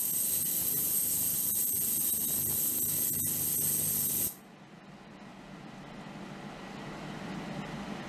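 Ultrasonic cleaning tank running: a steady hiss of the water with a high, steady whine, which cuts off suddenly about four seconds in, leaving a quieter low hum.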